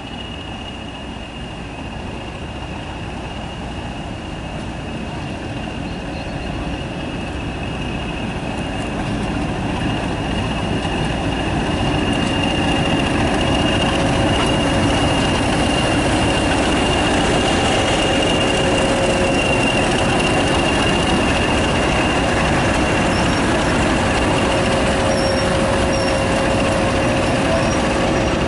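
Class 20 diesel locomotive D8098, an English Electric 8SVT turbocharged engine, approaching along the platform with its train. It grows steadily louder over about the first twelve seconds, then runs on at a constant level, with a steady high whistle over a lower hum.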